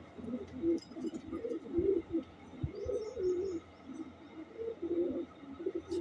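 Racing pigeons cooing: repeated low, warbling coos following one another.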